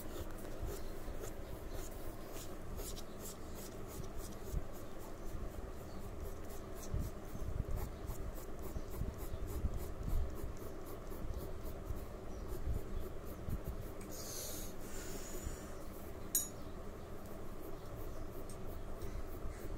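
Pencil sketching on drawing paper: many short, scratchy strokes in quick succession. About fourteen seconds in there is a longer rubbing swish, and a sharp click follows a second or so later.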